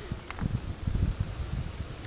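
Wind buffeting the microphone: an uneven, gusty low rumble, with a faint click about a third of a second in.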